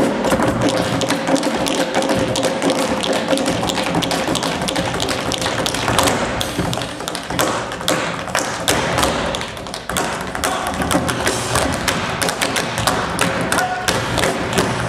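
Tap shoes of a group of tap dancers striking the stage floor in fast, dense rhythms.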